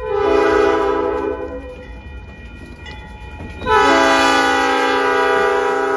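Diesel freight locomotive's multi-chime air horn sounding two blasts, a short one at the start and a long one from a little past halfway. Under it is the low rumble of the passing locomotives.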